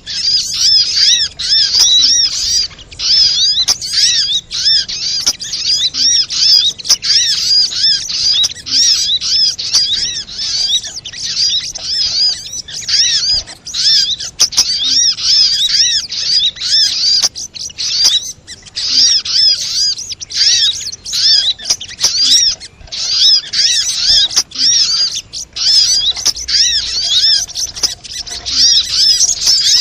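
Sogok ontong (spiderhunter) birds calling in a rapid, unbroken chatter of high, arched notes repeated several times a second, with only brief pauses.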